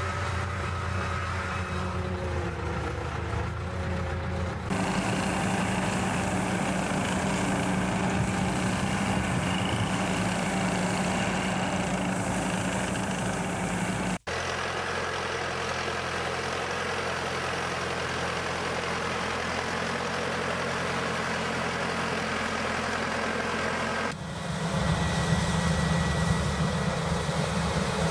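Farm machinery engines running steadily, the sound of tractors at work in the field. The engine sound changes abruptly three times, about 5, 14 and 24 seconds in, each with a steady low hum.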